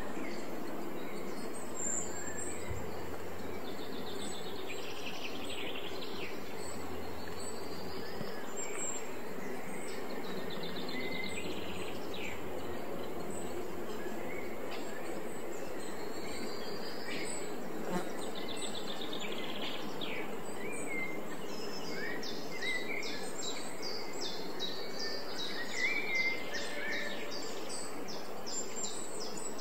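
Countryside ambience: small birds chirping and calling over a steady background hiss. The calls grow busier about two-thirds of the way through.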